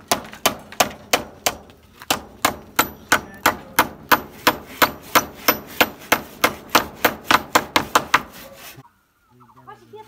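Claw hammer driving a nail through a split bamboo slat into a wooden post: steady, even blows about three a second, some with a short metallic ring, stopping suddenly near the end.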